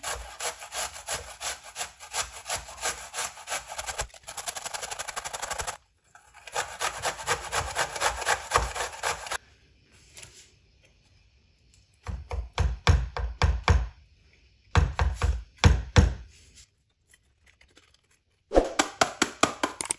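Raw turnips being grated on a four-sided stainless steel box grater: rapid scraping strokes in several runs with short quiet gaps between them.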